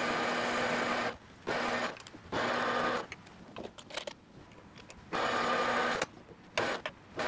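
Metal lathe running in sped-up footage while facing and center drilling a steel bar: a steady mechanical whirr with a low hum. It cuts out abruptly several times, once for about two seconds, as the lathe is stopped between cuts.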